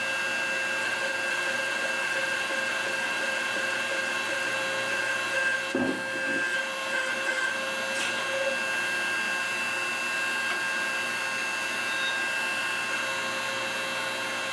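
Steady electric-motor drone with a fixed whine, unchanging throughout; a short thump about six seconds in and a sharp click near eight seconds.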